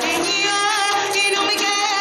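A young woman singing into a microphone over backing music, holding notes with a wavering vibrato.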